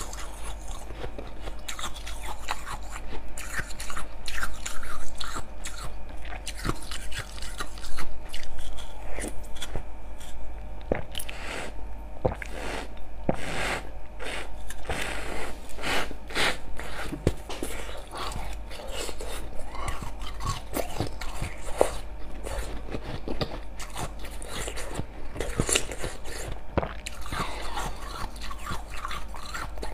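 A person biting and chewing slushy ice frozen in a plastic water bottle, with irregular crunches throughout and the loudest bites about five and eight seconds in.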